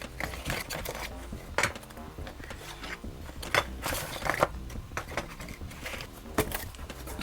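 3D-printer kit parts and small screws being handled and set down on a work surface: scattered light clicks and clinks of hard plastic and metal.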